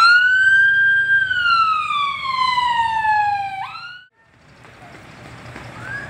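Electronic vehicle siren: one long wail that jumps up, holds for about a second, then falls slowly, starting to rise again just before it cuts off about four seconds in. Quieter street noise follows.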